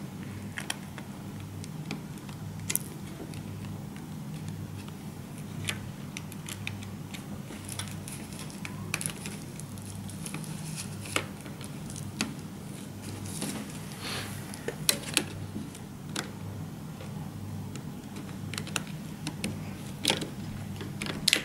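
Small irregular clicks and taps of fingers working flat ribbon cables and the flip-up latches of their connectors on an LCD TV's T-CON circuit board, over a steady low hum.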